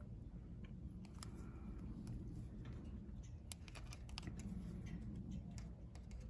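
Faint scattered clicks and small taps of the wire spade connectors being worked onto the terminals of a replacement AC run capacitor, over a low steady background rumble.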